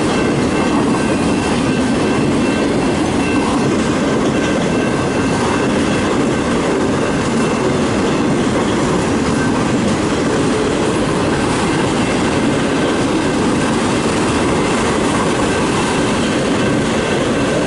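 Freight train of autorack and manifest cars rolling steadily past: a continuous rumble of steel wheels on the rails, with a faint, high, steady wheel squeal.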